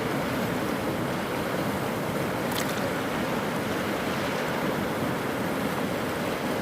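Rapti River in flood, its fast, swollen water rushing steadily.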